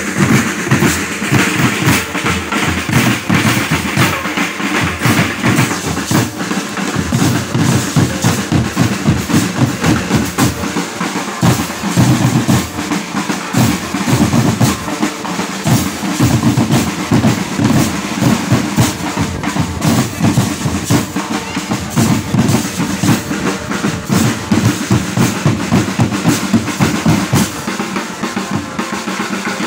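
Marching band drum line, snare and bass drums, playing a steady marching cadence of dense, regular strokes.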